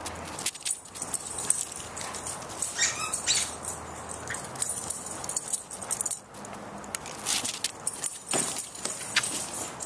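A Welsh terrier's collar tags jingling and its claws clicking on stone steps and flagstones as it runs about at fetch. A brief rising squeak comes about three seconds in.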